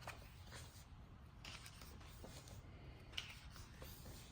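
Faint rustling of paper as the pages of a game book are turned and handled, a few soft swishes in an otherwise quiet room.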